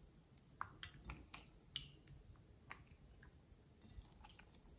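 Glossy slime being stretched and poked by hand: faint, irregular sticky clicks and squelches.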